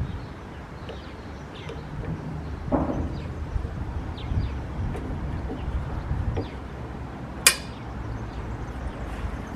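Small clicks and knocks of a fitting being handled and fitted by hand, with one sharp click about seven and a half seconds in, over a steady low outdoor rumble.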